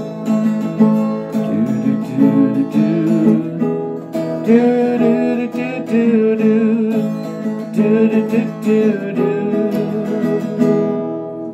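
Acoustic guitar strummed in a steady rhythm, an instrumental break in a folk-style song. From about four seconds in, a wordless held vocal line with vibrato joins it.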